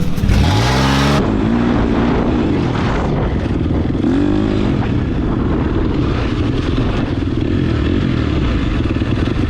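Truck engine revved up sharply in the first second, then idling steadily, with a short throttle blip about four seconds in.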